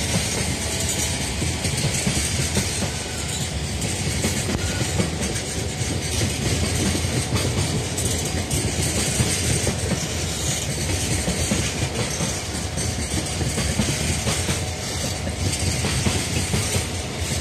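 A freight train of Koki 104 container flatcars, loaded with containers, rolling past at close range: steady wheel-on-rail noise with many irregular knocks of wheels clattering over the rail.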